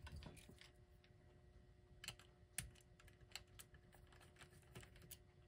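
Faint, scattered light clicks and taps of small parts being handled while a clock's electric motor is worked loose from its base.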